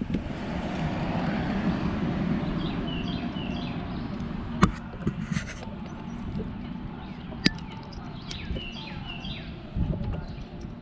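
Birds chirping in short repeated phrases, twice, over a low steady rumble, with two sharp clicks in between.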